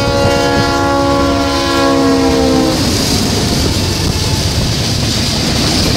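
Diesel freight locomotive's air horn sounding a loud chord that dips slightly in pitch as the locomotive passes and stops about two and a half seconds in. After it comes the steady rushing rumble of freight cars rolling past at speed.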